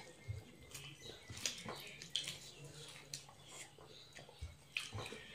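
People eating rice and curry with their hands: faint chewing and mouth smacks with scattered small clicks.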